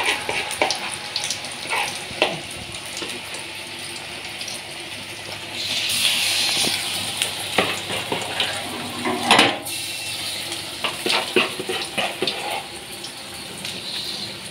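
Hand work on a plastic toner cartridge: irregular clicks, taps and scraping, with a louder hiss about six seconds in and a sharp knock near nine and a half seconds.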